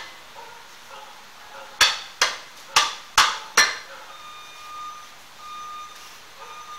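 Five sharp metal-on-metal hammer blows in quick succession, a little under two a second, each ringing briefly, on the 4Runner's rear brake rotor and hub as the old rotor is knocked loose. A faint high tone comes and goes in the second half.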